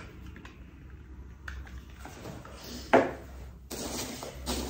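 Objects being handled: a single sharp knock about three seconds in, as of something set down on a hard surface, then rustling from the next item being picked up.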